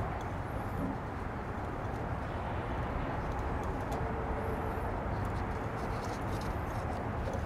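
Steady low background rumble with two faint, high bird chirps, one near the start and one about halfway through.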